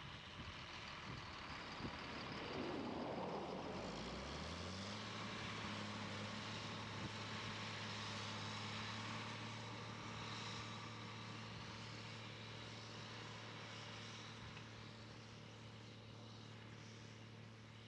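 John Deere tractor's diesel engine revving up as it pulls the mint planter away, rising in pitch about three to five seconds in, then running steadily and fading as it moves off across the field.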